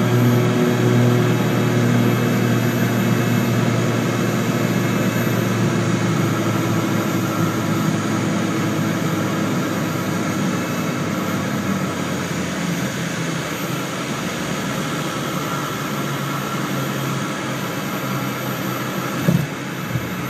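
Cabin sound of a Cessna 414's twin piston engines on final approach: a steady drone whose tones fade over the first few seconds as power comes back, leaving engine and air noise that slowly lessens. A short thump near the end as the wheels touch down on the runway.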